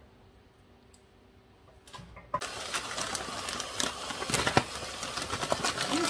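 Water from a kitchen tap comes on suddenly about two seconds in and runs, splashing into the sink with a dense patter of small clicks.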